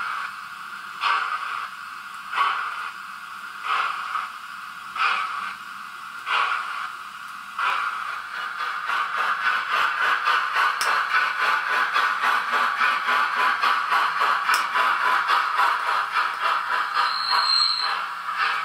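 Digital sound of a model BR 10 steam locomotive: slow, evenly spaced chuffs about every second and a half, then from about eight seconds steady fast chuffing as the locomotive runs, with a short high tone near the end.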